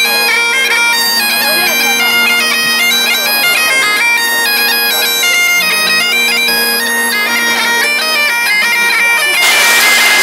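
Highland bagpipes playing a tune, the chanter melody stepping from note to note over steady drones. About nine and a half seconds in, a loud rushing noise comes in.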